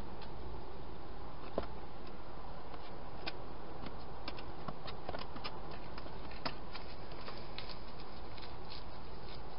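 Wild hedgehogs feeding at a plastic feeding box: irregular small clicks and crunches over a steady hiss, with two louder clicks, one about a second and a half in and one about six and a half seconds in.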